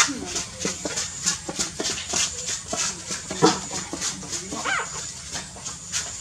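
Newborn puppies nursing: a steady run of small suckling clicks, about three a second, with two brief high squeaks or whimpers from the puppies, one about halfway through and another a second later.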